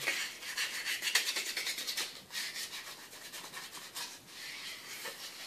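Scrubbing a water-damaged Samsung Galaxy S4 part that has been cleaned with isopropyl alcohol: a fast, dry, scratchy rubbing made of many quick strokes, heavier for the first two seconds, then lighter.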